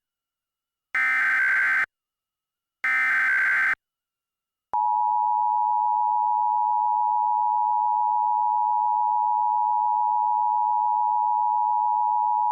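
Emergency Alert System tones: two short bursts of the SAME digital header, a harsh warbling data screech, about a second apart. About five seconds in, the steady two-tone EAS attention signal starts and holds for about eight seconds.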